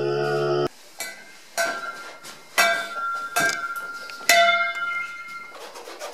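A steady buzzing tone blown through a tall metal vessel used as a makeshift horn, cut off abruptly under a second in. Then four sharp strikes about a second apart, each leaving a clear ringing tone that dies away.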